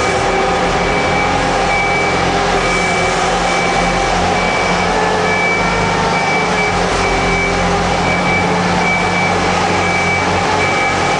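Heavy diesel machinery running steadily, with a reversing alarm beeping in an even series over it.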